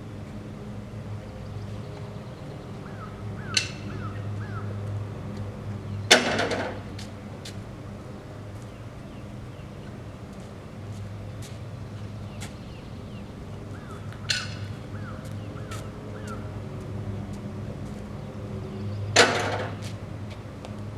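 A home-made sawmill's engine running steadily with a low hum, with four sharp knocks scattered through it; the second and fourth are the loudest.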